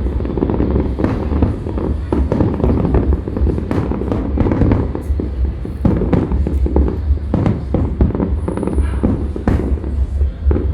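Aerial fireworks shells bursting in rapid succession: many overlapping booms and cracks over a continuous low rumble, with music playing underneath.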